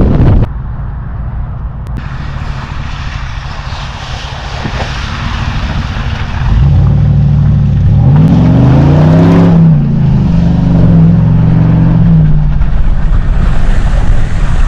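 Off-road pickup truck's engine under load: quieter for the first few seconds, then loud from about halfway in, with the revs rising and falling several times.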